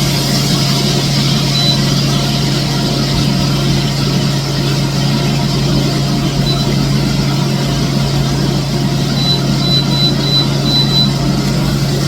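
A steady low mechanical hum over a constant rushing noise, engine-like and unchanging. A few faint, short high peeps come through, mostly in a cluster near the end.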